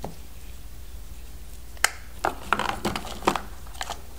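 Hard plastic parts of an Octonauts OctoSaw toy set clicking and knocking as they are handled: one sharp click a little under two seconds in, then a quick run of clatter for about a second.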